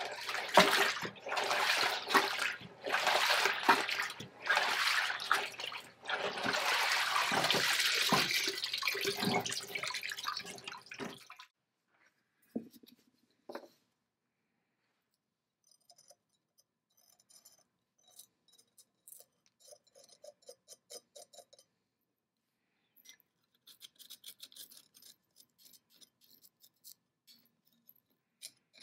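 Liquid splashing and sloshing as a plastic basket of parts is worked in a barrel of liquid, stopping abruptly about eleven seconds in. Later come a couple of light knocks, then faint, rapid scratching clicks of a metal pick scraping inside a small metal dish on the antique dental casting machine.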